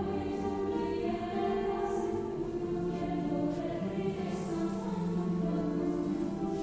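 A choir singing, the voices holding long, sustained chords.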